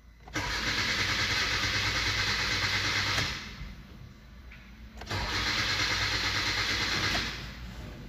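A 2016 Hyundai Accent's starter cranking the engine twice, about three seconds and then about two, without the engine firing: a crank-no-start, which the customer puts down to no power reaching the ignition coil.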